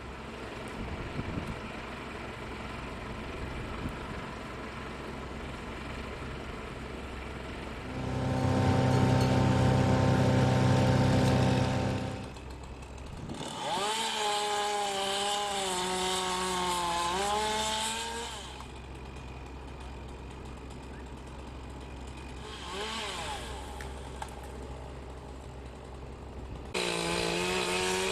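Chainsaw revving in several bursts, its pitch wavering, over a steady engine drone. About eight seconds in, a louder engine runs at a steady pitch for about four seconds.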